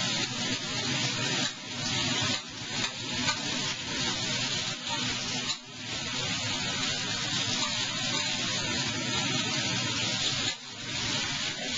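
Eggplant sizzling as it fries in hot oil in a pan, a steady hiss that dips briefly now and then as it is stirred.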